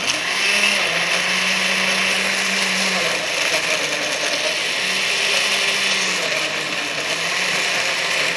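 Countertop blender running at full speed, pureeing cooked arracacha and milk into a smooth liquid. It switches on at once and whirs steadily, its motor pitch wavering slightly.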